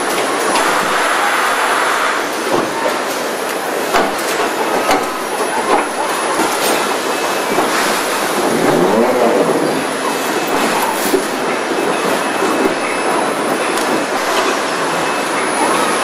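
Automated car body-shop noise: industrial robot arms moving and clamping steel body panels, with a steady machine hum and hiss. Scattered metallic clicks and clanks come every second or so, and a motor whine dips and rises about nine seconds in.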